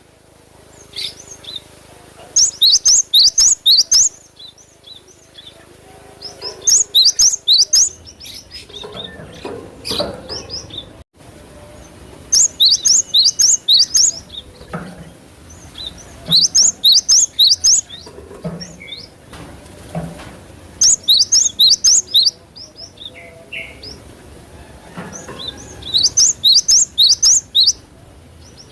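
Cinereous tit (gelatik batu) singing in repeated bursts of quick, high, sharply falling notes. Each burst lasts about a second and a half, with pauses of a few seconds between them.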